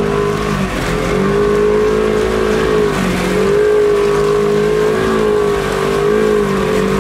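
Polaris Ranger side-by-side's engine running at a steady pitch as it ploughs through deep water, with water rushing and splashing against the side of the vehicle.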